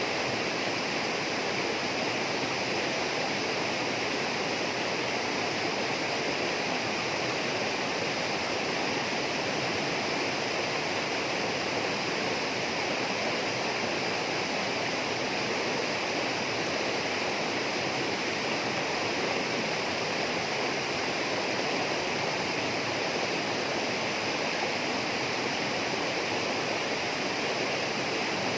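Flowing water in a rainforest stream, a steady rush with no breaks.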